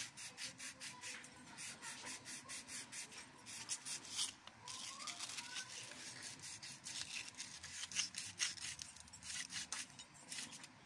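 Rapid scratchy rubbing strokes as the slip rings of an alternator rotor are rubbed clean by hand.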